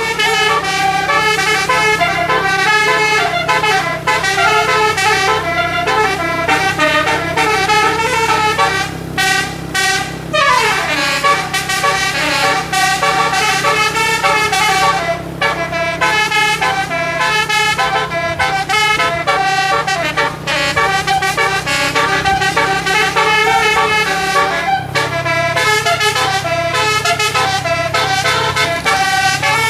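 A tour bus's Basuri "telolet" multi-tone air horn playing rapid, shifting melodies, with one falling slide in pitch about ten seconds in. The bus engine runs steadily underneath.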